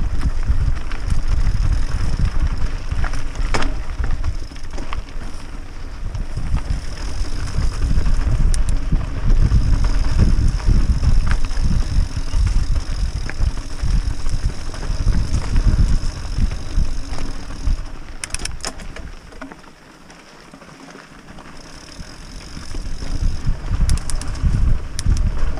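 Scott Spark mountain bike riding fast down dirt singletrack, heard from a camera mounted on the bike: wind buffeting the microphone, with tyres rolling on dirt and the bike rattling over bumps. The rumble eases for a few seconds about three-quarters of the way through, and there are a few sharp clicks.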